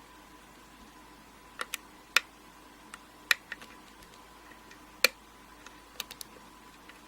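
Irregular sharp clicks and ticks of a lock pick and tension wrench working the pin stack inside an Abus 72/40 brass padlock's keyway during single-pin picking, about a dozen in all with three louder snaps.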